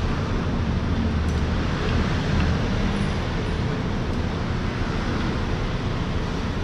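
Steady street traffic noise: a low rumble with hiss that swells slightly a couple of times as vehicles pass.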